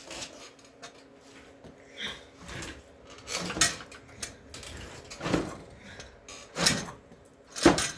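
Tools and parts being handled: a string of irregular knocks and clatters, with the two loudest in the last couple of seconds.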